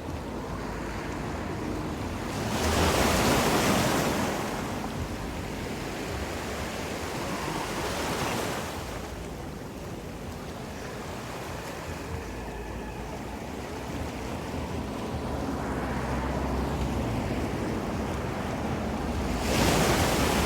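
Ocean waves washing onto the shore, a steady rushing that swells into louder surges about three seconds in, again around eight seconds, and near the end.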